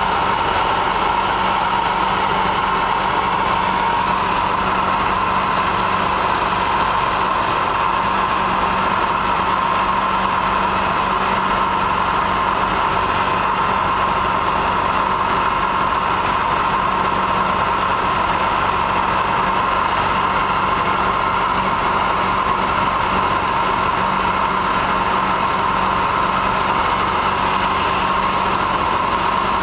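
Steady drone of a light aircraft's engine and propeller in cruise, heard from inside the cabin, with a constant low hum and a strong mid-pitched whine that never changes.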